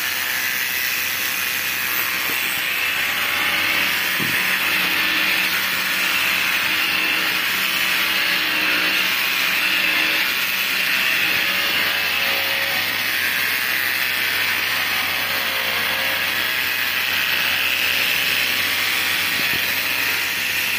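Electric hair clipper running with a steady buzz as it shears through a Tibetan mastiff's long, thick coat.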